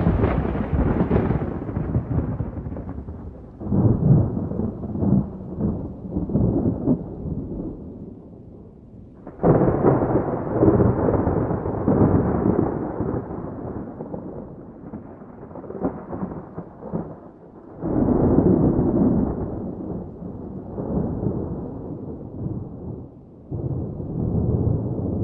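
Wind buffeting the phone's microphone: a low rumble that swells and fades in gusts, strongest about four, ten and eighteen seconds in.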